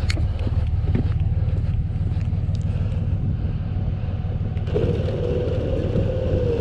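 A vehicle engine running with a steady low rumble. About five seconds in, a whine joins it and slowly drops in pitch.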